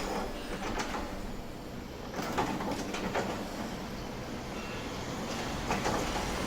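Trackside noise with scattered clanks and knocks, and a train starting to come through near the end.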